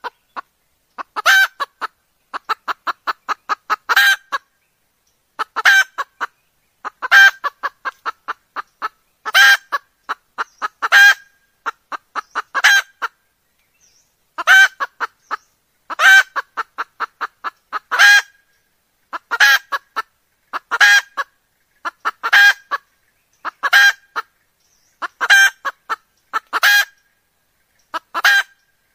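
Junglefowl hen calling: runs of quick short clucks, each ending in a louder, longer pitched call. The pattern repeats about every one and a half to two seconds.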